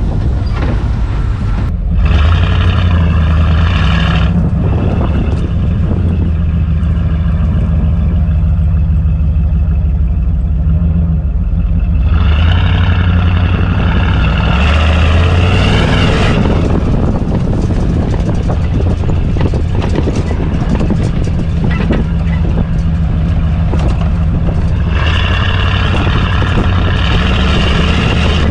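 Truck engine running continuously as the truck is driven off-road. It gets louder and brighter, revving harder, about two seconds in, again from about twelve to sixteen seconds, and near the end.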